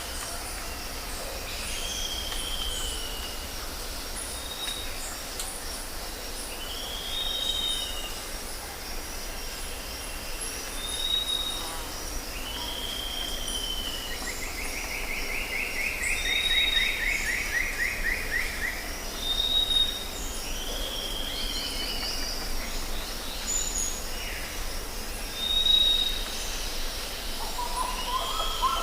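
Jungle ambience: several birds calling over and over, short arched whistles every few seconds and one long falling trill about halfway through, over a steady high insect drone and a low rumble.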